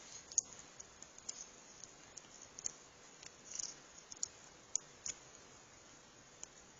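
Small irregular metallic clicks and ticks of a lock pick working the pins inside a Chubb padlock's keyway.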